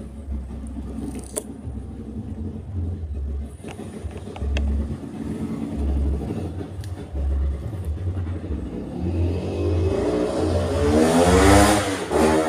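A motor vehicle's engine revving up, rising in pitch over the last few seconds and then dropping off sharply, over a low pulsing hum.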